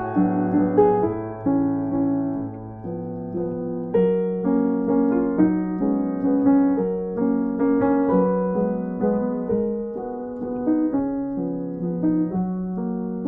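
Background music: a piano playing a gentle tune of repeated, decaying notes and chords.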